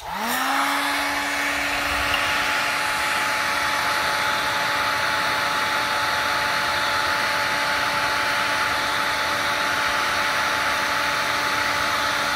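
Electric heat gun switched on, its fan motor spinning up to a steady whine over a rush of air, then switched off just at the end and winding down. It is melting a solder-seal heat-shrink connector to join a replacement battery's wires.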